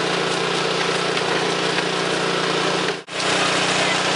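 Concrete mixer running with a steady drone. The sound cuts out for a moment about three seconds in, then carries on unchanged.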